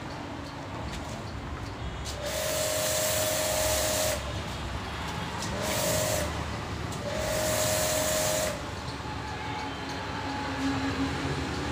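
Pressure washer with a snow-foam lance spraying in three bursts, about two seconds, half a second and a second and a half long: a hiss of spray with the steady whine of the pump motor in each burst. A low hum of traffic runs between the bursts.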